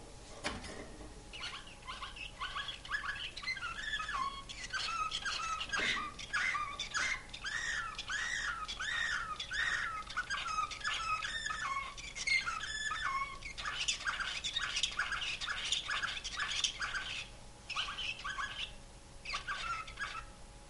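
Caged song canary of the Serbian 'slavujar' (nightingale-song) type singing a long song of rapid repeated notes and trills, phrase after phrase, with short breaks near the end.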